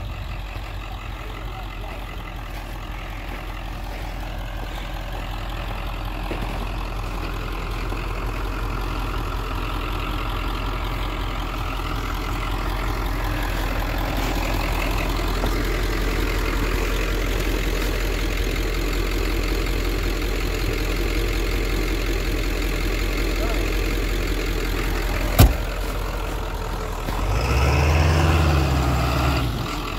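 Ford pickup truck engine idling steadily. One sharp knock comes about 25 seconds in. Near the end the engine revs up briefly and falls back.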